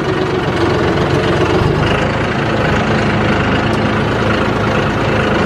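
John Deere 5075E tractor's diesel engine running steadily while being driven along, its note deepening slightly about two seconds in.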